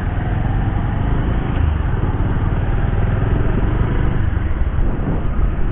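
Motorcycle running on the road, with steady engine and wind noise on the microphone.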